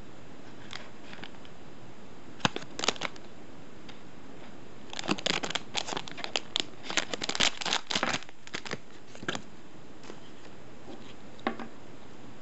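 Plastic blind-bag packet crinkling and crackling as it is handled and opened by hand, over a steady hiss. There are a few sharp crackles about two and a half seconds in, a dense run of crinkling from about five to nine and a half seconds, and one more crackle near the end.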